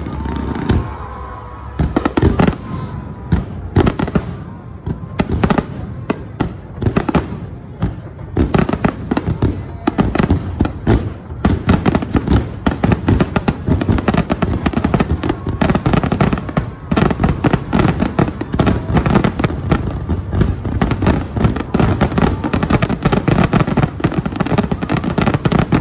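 Aerial fireworks shells bursting: a few separate booms at first, then from about eight seconds in a dense, rapid barrage of bangs, several a second.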